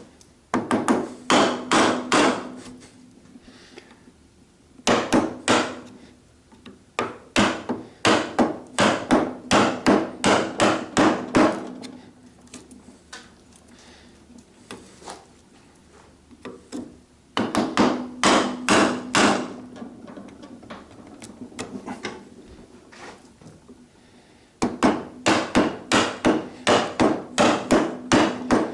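A chisel driven into timber by repeated mallet blows, chopping out a mortise: runs of sharp strikes about three a second, with short pauses between the runs.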